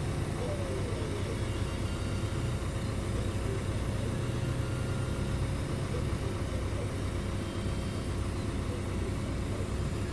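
Diesel engines of heavy earthmoving machinery running steadily, an even low rumble.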